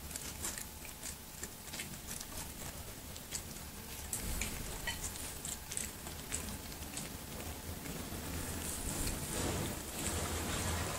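Kitten eating small pieces of food off a tile floor close to the microphone: a run of small irregular clicks and smacks from its chewing and licking. Near the end a soft rustling comes in.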